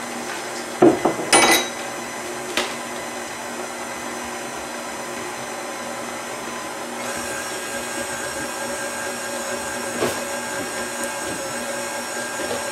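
Stand mixer running steadily, its motor humming as the beater mixes chopped walnuts and raisins into applesauce cake batter. A couple of knocks sound near the start, and the hum shifts slightly about seven seconds in.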